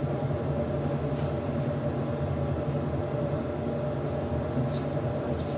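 Hoover H-100 vented tumble dryer running: a steady motor and fan hum with a constant tone, a few faint ticks near the end.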